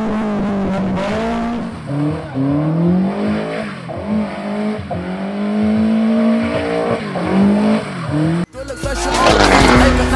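A motor vehicle engine revving, its pitch rising and falling again and again, with music underneath. About eight and a half seconds in it cuts off abruptly into a louder, rougher burst of engine noise.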